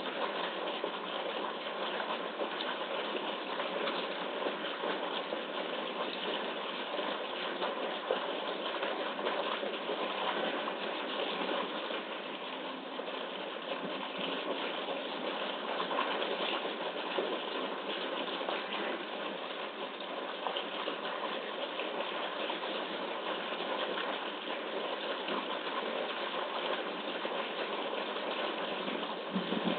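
Steady rushing and splashing of a strong water jet pouring from a wall pipe into a concrete pool, heard thin through a webcam microphone.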